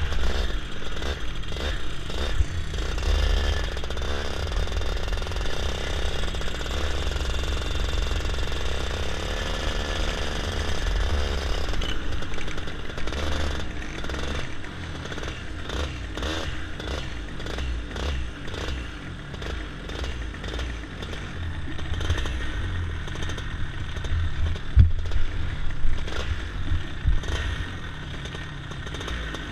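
Racing kart engine heard from on board at low revs as the kart slows, with wind rush on the microphone. About halfway through it drops quieter and a rapid rattling clatter sets in, with a few sharper knocks near the end.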